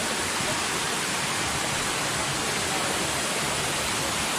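A medium-sized waterfall: water falling over rocks as a steady, even rushing noise that does not change.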